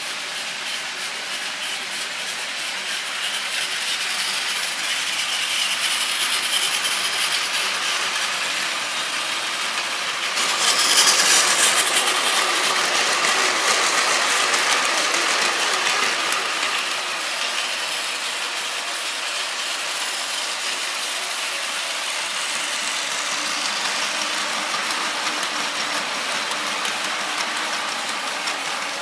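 Battery-powered Plarail toy trains running on plastic track: a steady whirring and rattling of the small motors and the wheels on the plastic rails. It gets louder for about a second and a half, about eleven seconds in.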